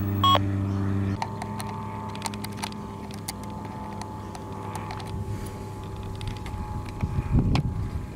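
Dickie 2.4 GHz toy walkie-talkie, just switched on: two short electronic beeps, then a steady electronic hum that shifts to higher tones about a second in. Small clicks and taps come from a screwdriver and fingers working the plastic battery cover.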